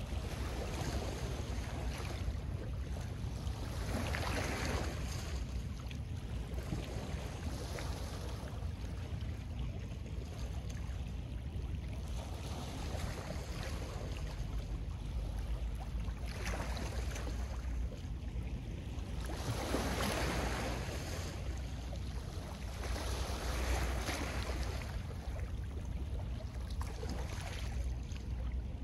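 Small lake waves washing over a pebble shore, swelling into a louder hiss every few seconds, over a steady low rumble of wind on the microphone.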